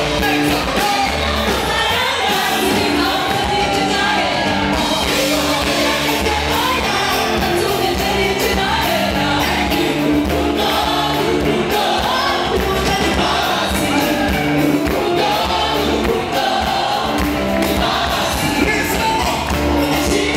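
A gospel vocal group singing together with a live band, several voices over a steady beat.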